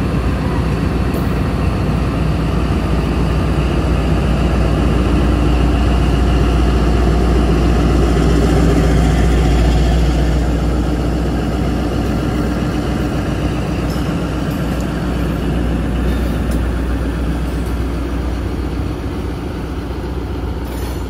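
ZCU-20 diesel-electric locomotive's engine running under power as it hauls a departing passenger train past at close range, swelling to its loudest about halfway through and then fading as it moves off.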